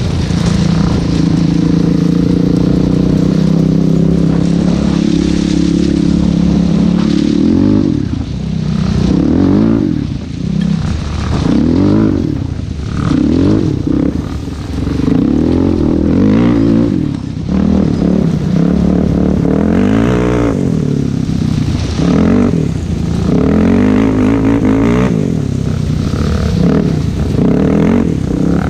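Single-cylinder four-stroke sport ATV engine running under the rider, holding a steady pitch for several seconds, then revving up and down repeatedly as the throttle is worked, with tyres crunching over loose track ballast.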